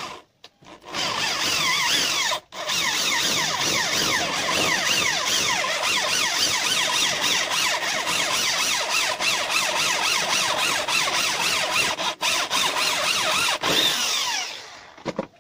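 Corded electric drill boring into a metal part held in a bench vise, the bit cutting with a rapid series of falling squeals. It starts about a second in, stops briefly once, then runs steadily and winds down near the end.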